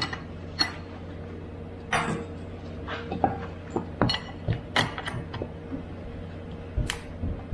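Scattered knocks, taps and clunks, about a dozen, as a heavy rubber-lined mold and its mother mold are handled and pried at to free the clay original, over a steady low hum.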